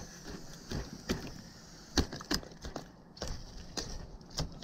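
Fillet knife cutting along a sheepshead's rib cage: an irregular series of sharp clicks and cracks as the blade works past the hard rib bones.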